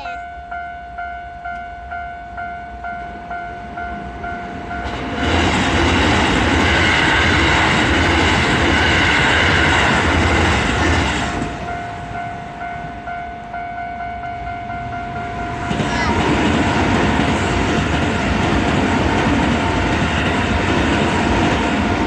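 Japanese railway level-crossing warning bell ringing a repeating electronic ding, about two and a half strikes a second. Keisei Line trains pass through the crossing twice, about five seconds in and again about sixteen seconds in. Their rumble and wheel rattle drown out the bell while each train goes by.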